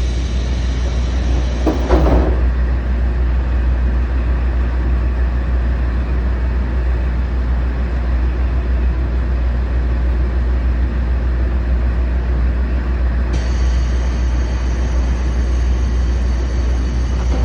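JR Shikoku KiHa 40/47 diesel railcar running, with a steady low diesel rumble. A high steady whine sits over it for the first two seconds and comes back about 13 seconds in, and there is a short knock about two seconds in.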